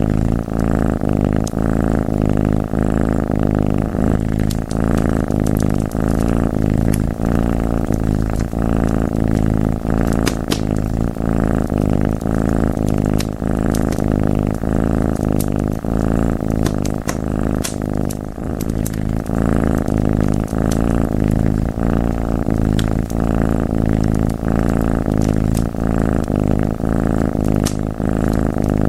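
Close, loud cat purring that pulses in a steady rhythm. Sharp fireplace crackles pop now and then over it.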